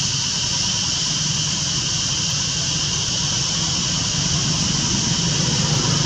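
Steady outdoor background noise: a constant high-pitched drone with a low hum underneath, unchanging throughout.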